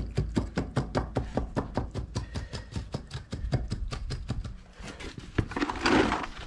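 Length of timber tapped rapidly and repeatedly on wet, freshly laid concrete to tamp the surface, about five or six taps a second, with a louder rough noise near the end.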